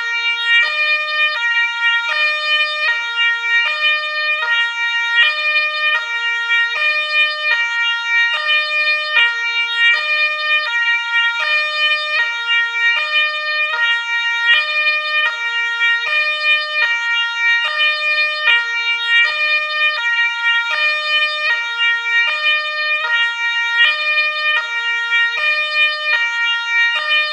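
Ambulance siren sounding continuously in a two-tone pattern, stepping back and forth between a higher and a lower pitch about every half second.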